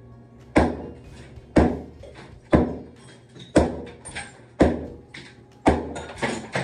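A short-handled sledgehammer striking an old tiled shower wall and its thick mortar bed. The blows fall about once a second, roughly eight of them, each a sharp crack with a brief trail of breaking material, and a few smaller knocks come between some of them.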